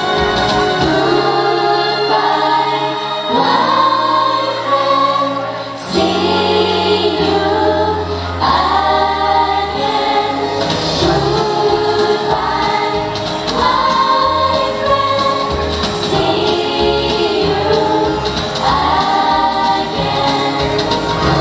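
Several young women singing a Thai pop song together into handheld microphones, over backing music with sustained bass notes.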